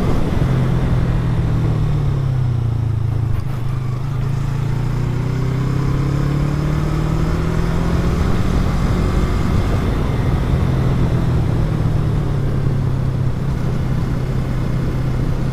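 Yamaha MT-03's parallel-twin engine running under way at a fairly steady speed, its note dipping slightly a few seconds in and then holding steady.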